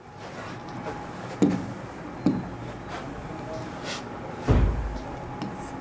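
Three soft knocks over a faint steady room hum, the last and loudest a dull thud about four and a half seconds in.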